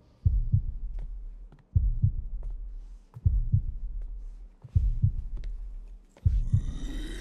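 Slow, deep heartbeat sound effect: a double thump about every second and a half over a low rumble. Near the end a rising tone sweeps up beneath it.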